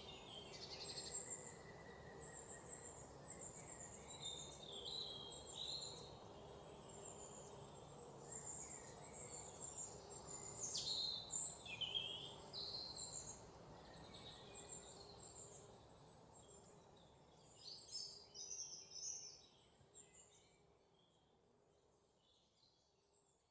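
Faint birds chirping and twittering, many short high calls, over a steady low hum and background hiss, fading out near the end.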